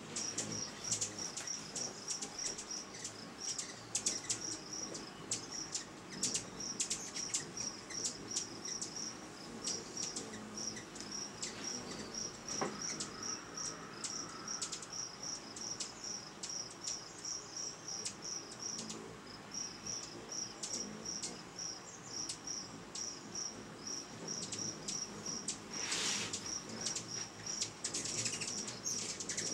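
A steady high chirp repeating evenly about two to three times a second, with scattered short sharp ticks over it and a brief rushing burst near the end.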